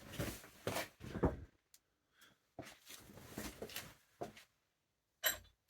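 Scattered knocks and scrapes of metal parts being handled on a milling machine, in two short clusters, with a sharp click near the end.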